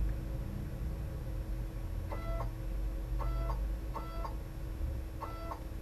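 Kudo3D Titan 1's Z-axis stepper motor whining through four short moves of the build plate, each a brief tone that sweeps up and back down. The moves are the plate's lift-and-lower cycles in the resin vat, and they play over a steady hum.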